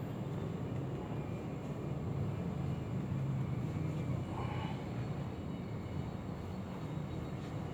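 A steady low mechanical hum, even and unbroken.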